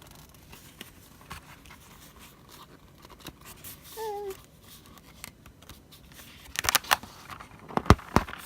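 Paper desk calendar being handled: faint ticks, then a cluster of sharp clicks and rustles near the end as it is moved and its pages shift. A brief hummed voice sound comes about four seconds in.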